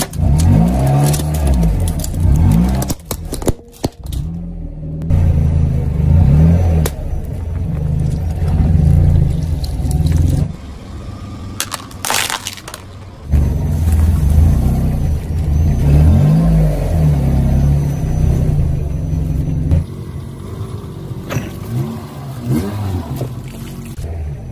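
Car engine running at low revs while a tyre rolls over and crushes a stainless steel box grater. Sharp metallic cracks and crunches come in several places, the loudest about twelve seconds in.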